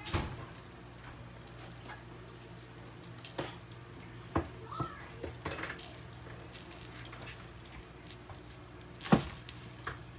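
Kitchen utensils and cookware being handled: a few light knocks and clicks, with one louder knock near the end, over a steady low hum.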